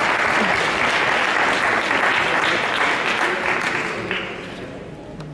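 Audience applauding, with hands clapping close by, fading away near the end.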